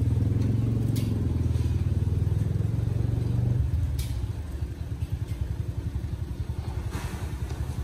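A motor vehicle engine running with a low, rapidly pulsing rumble, loud for the first three and a half seconds, then dropping to a quieter rumble. A few light clatters come in about a second in, four seconds in and near the end.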